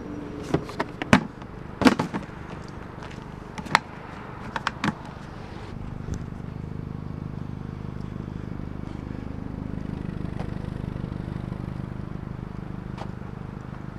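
Several sharp knocks and clatters in the first five seconds, typical of hard objects being handled in a curbside trash pile, then a steady low rumble, like a vehicle engine, from about six seconds in.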